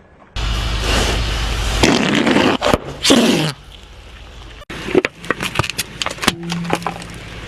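A car rolling over objects. Its engine rumble and tyre noise give a loud rush for about three seconds, then a run of sharp cracks and crunches follows as things break under the wheels.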